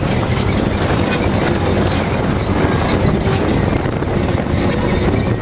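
Arctic Cat Wildcat 1000 side-by-side with its 951 cc V-twin, driven hard on a rough dirt trail and heard from inside the cab: steady engine noise mixed with wind noise and many small knocks.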